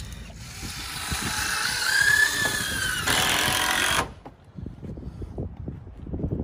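A power tool running under load, its whine rising and falling in pitch, then cutting off abruptly about four seconds in. Quieter footfalls on decking follow.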